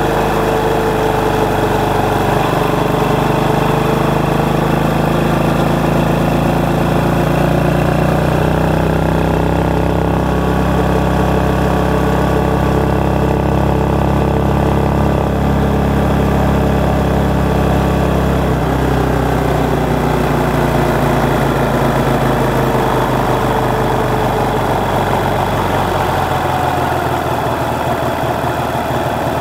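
Motorcycle engine running while riding in traffic, picked up by an external microphone mounted under the seat, so the engine comes through with little wind noise. The engine note rises and falls gently with the throttle.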